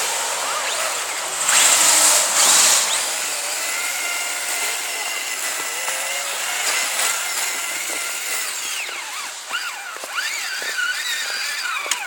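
Kyosho Blizzard RC tracked snow vehicle's electric motor and gears whining, the pitch rising and falling as the throttle is worked. A loud hissing burst comes about two seconds in.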